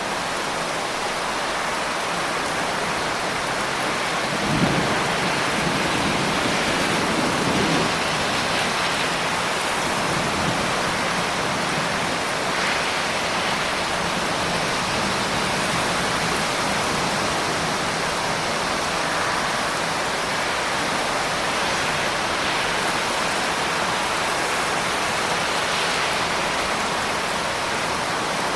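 Heavy rain falling steadily, with a low rumble of distant thunder rolling between about four and eight seconds in.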